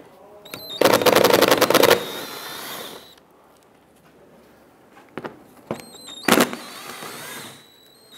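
Socket tool backing out 7 mm bumper-cover screws: a loud, rapid run of even clicks about a second long, about a second in. A few short bursts follow about two-thirds of the way through.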